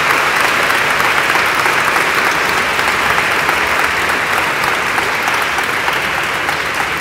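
Large audience applauding, a dense, steady clapping that eases off slightly near the end.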